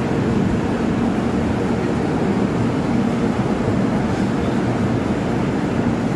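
Passenger train running: a steady, even rumble with no breaks.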